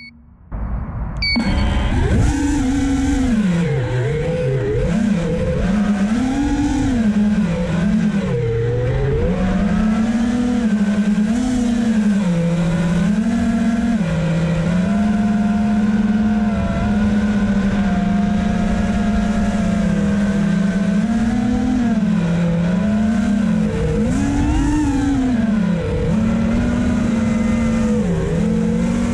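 FPV freestyle drone's electric motors whining, the pitch repeatedly rising and falling with throttle changes. It picks up about a second and a half in and then runs on loud.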